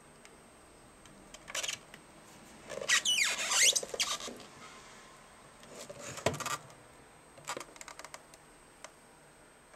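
Handling noise from a Bernina sewing machine's plastic foot controller being turned over on the table: a squeaky rubbing sound lasting about a second, loudest about three seconds in, then a knock about six seconds in and a few light clicks.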